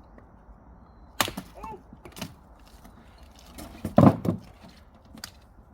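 Axe blows splitting firewood: a sharp strike about a second in and a heavier, louder chop about four seconds in, with a few smaller knocks of wood between.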